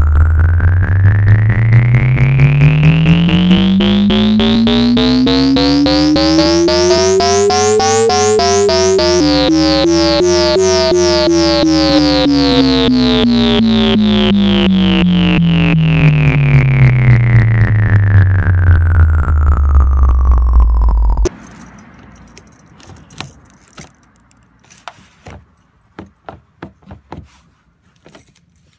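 Synthesizer music: a stack of tones sweeps up in pitch and then back down, loud throughout, and cuts off suddenly about two-thirds of the way in. Faint scattered clicks and handling noises follow.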